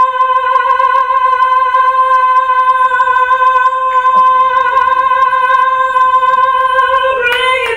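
A woman holding one very long sung note at a steady pitch, which wavers briefly and breaks off near the end. It is a deliberately overlong held note, sung as a comic parody.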